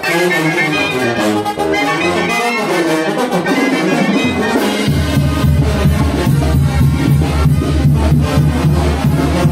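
Mexican brass band (banda) music led by trumpets and trombones. About five seconds in it cuts abruptly to music with a heavy, steady bass and an even beat.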